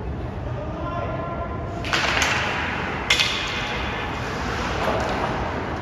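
Ice hockey play heard from the stands: a voice calls out, then about two seconds in the faceoff breaks into skates scraping the ice and sticks clattering, with a sharp crack of stick on puck about a second later.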